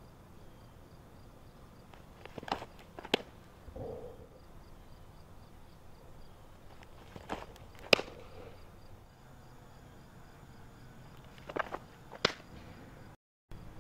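Softball pitches being caught, three times: each a pair of sharp smacks about half a second apart, the second the ball popping into the catcher's mitt. Faint insects chirp steadily underneath.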